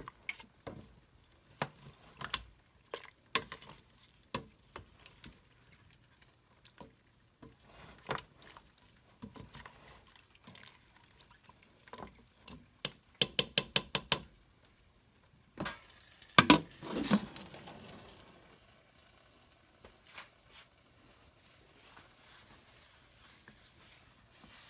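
Kitchen cooking sounds: scattered knocks and clinks of utensils against pots and dishes. About halfway through comes a quick, even run of clicks, then two loud clanks followed by a hiss that slowly fades.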